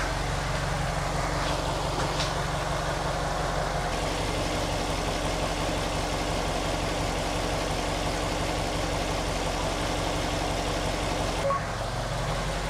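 Subaru Impreza WRX STI's EJ20 turbocharged flat-four idling steadily, heard in the engine bay with its mechanical valvetrain noise, which the owner judges to be quite small with the oil and fuel additives in.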